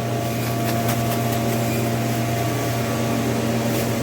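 Steady mechanical hum of a supermarket's building machinery, such as refrigeration or air handling, with a low drone and a few faint steady tones above it. There are light ticks about a second in and near the end.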